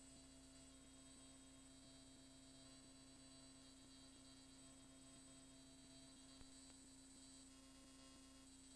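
Near silence: a faint, steady low hum with light hiss.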